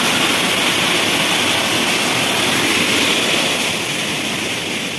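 Small forest waterfall: water falling onto rocks with a steady rushing noise that grows a little quieter near the end.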